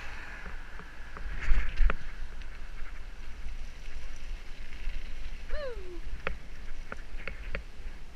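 A mini bike riding over pavement, heard as steady wind rumble on the action camera's microphone with knocks and rattles from the ride, loudest about a second and a half in. About five and a half seconds in there is a brief falling squeal.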